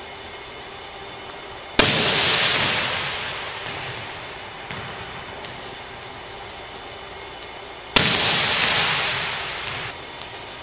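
A volleyball being struck twice, about six seconds apart. Each hit is a sharp smack that rings out in the gym's echo for about two seconds.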